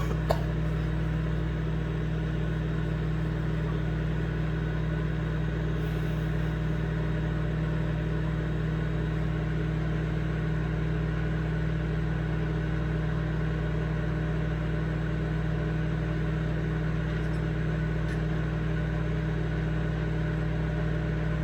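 Microwave oven running with a steady low hum, heating eggs in a container of water on the final stretch of the cook.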